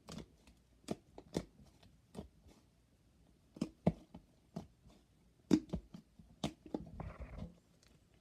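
Slime being pressed and squeezed, giving off irregular sharp clicks and pops as the air trapped in it is squashed out, with a brief soft squish near the end.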